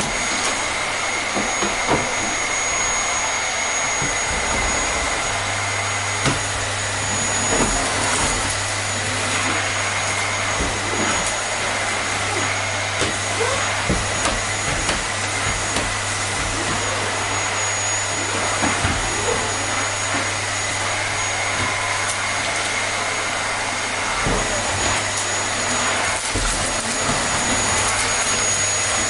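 Vacuum cleaner running continuously: a steady rushing of air with a constant high motor whine, with small clicks and rattles scattered through it.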